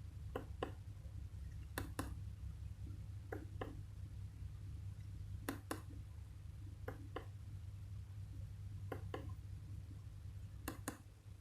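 Keypad buttons on a Nokia X1-01 being pressed, with a click on each press and each release, coming in pairs about every second and a half, over a low steady hum.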